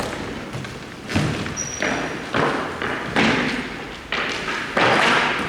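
A series of four heavy thuds about a second apart, the first about a second in, each with a short fading tail.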